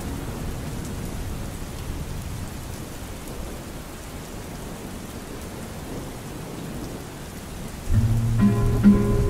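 Steady rain, its sound heaviest low down. About eight seconds in, a guitar song starts over it.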